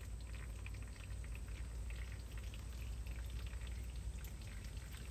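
Tractor transmission/hydraulic oil dripping and trickling into a drain pan, a scatter of small irregular drips over a steady low hum; the oil carries moisture.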